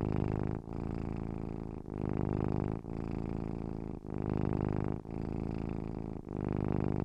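Domestic cat purring steadily, the low rumble dipping briefly about once a second.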